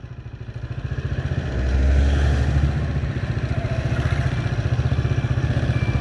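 Motorcycle engine running at low speed with a fast, even pulse. A deeper rumble swells about one and a half seconds in and eases off by about three seconds.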